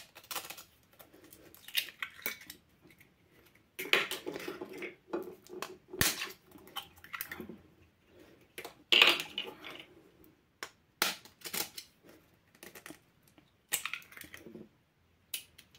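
Eggs being cracked with a kitchen knife: sharp taps of the blade on the eggshells and crackling as the shells are broken open by hand over a ceramic bowl, in scattered clicks and short clusters.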